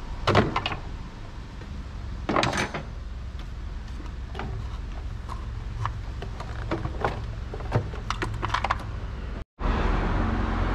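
Two sharp knocks, then a scatter of light clicks, typical of hand tools and engine parts being handled, over a steady low hum. Near the end the sound cuts out briefly and comes back as a louder, even background noise.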